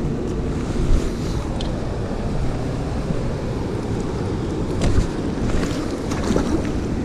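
Steady low rushing noise of wind buffeting the microphone and water at a dam shore, with a couple of light knocks, about a second in and near five seconds.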